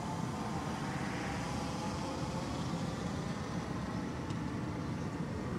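LotusRC T380 quadcopter's motors and propellers humming steadily high overhead, over a steady low rumble.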